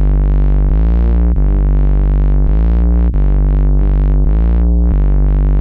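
Instrumental intro of a live rock song: sustained synthesizer chords that change every second or so, each swelling and fading in brightness, over a steady bass, with no drums yet.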